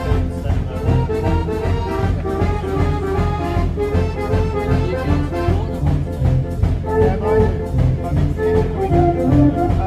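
A 105-key Decap dance organ playing a tune, its brass- and accordion-like pipe voices carrying the melody over a steady drum beat.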